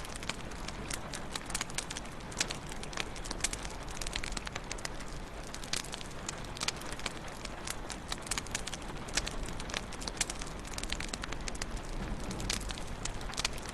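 Wood fire burning in a fireplace, crackling with many sharp pops and snaps, several a second, over a steady hiss.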